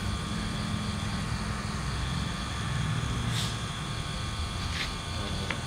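Small omni-wheel robot's motors running steadily: a low hum with a faint high whine, and a few soft ticks in the second half.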